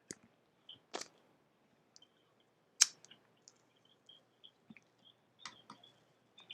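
Scattered clicks and taps of a computer keyboard and mouse, irregular and a second or so apart, with the sharpest click about three seconds in.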